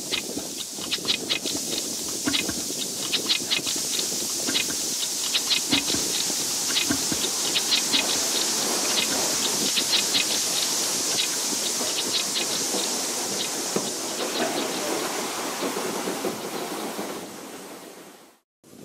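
DR class 35.10 steam locomotive 35 1097-1 moving slowly past, with a steady hiss of steam and a quick run of sharp metallic clicks from its wheels and running gear over a low rumble. The sound fades out near the end.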